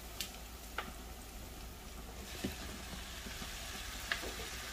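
Minced turkey frying in hot olive oil with browned onions and garlic: a steady sizzle, with a few light clicks of a utensil against the pan.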